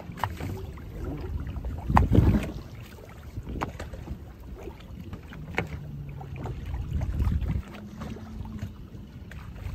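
Small boat drifting at sea, with wind buffeting the microphone and a rumbling low-end wash, loudest in a gust about two seconds in. Several sharp knocks of gear against the boat, and a low steady hum from about halfway through that steps up in pitch near the end.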